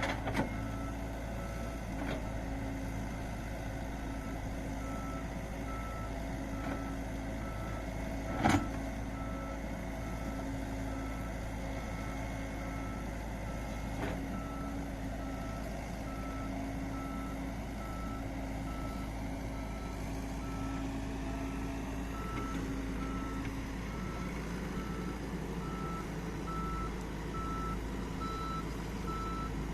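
A heavy machine's reversing alarm beeps at an even pace over its engine running steadily. One sharp, loud knock sounds about eight seconds in.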